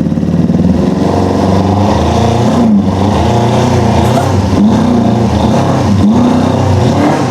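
Four-cylinder track motorcycle engine that has just fired up, running rough and being revved up and down several times. It is misfiring on only two or three cylinders, put down to an ignition or fuel-delivery fault.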